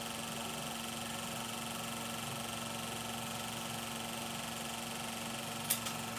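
16mm sound film projector running over the countdown leader: a steady hum and hiss with no soundtrack yet, and a brief double click shortly before the end.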